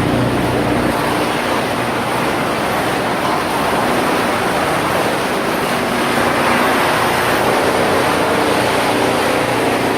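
Wood chip production line machinery, including a large wood chipper, running continuously: a loud, steady noise with faint humming tones underneath.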